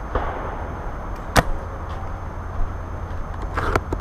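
A single sharp shot from a spring-powered SSG-10 airsoft bolt-action sniper rifle about a second and a half in, the loudest thing heard. A quick cluster of smaller clicks follows near the end, over a steady low rumble.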